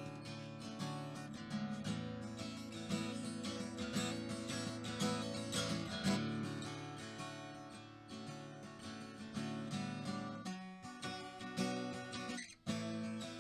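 Background music: strummed and plucked acoustic guitar, with a brief drop near the end.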